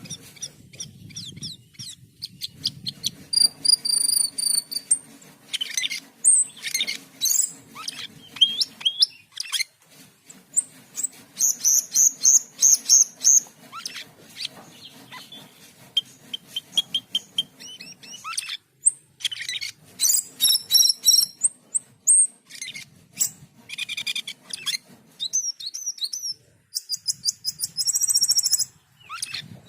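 Cucak keling (jalak keling), a starling, singing a long, varied song of sharp whistles, fast chattering trills and rapid clicking runs, in bursts broken by short pauses. A faint low hum runs underneath.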